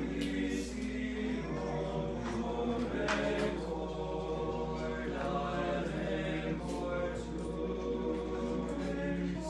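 Male a cappella choir of about a dozen young men singing together from song sheets, holding sustained notes that change every second or so.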